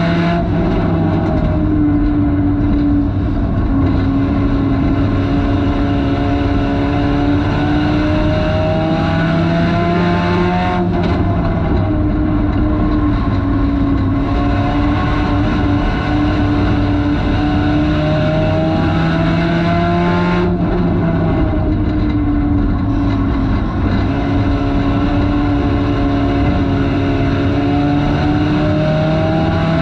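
Front-wheel-drive race car's engine at racing speed, heard from inside the cabin over a constant rushing noise. Its pitch climbs for a few seconds and then drops sharply, three times about ten seconds apart, as the car accelerates and then lifts off for the turns.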